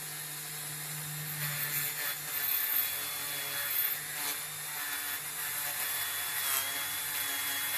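Handheld rotary tool running steadily with a small wire brush wheel, scrubbing old paint off a small diecast toy figure: a steady motor hum and high whine with a scratchy hiss from the bristles on the metal.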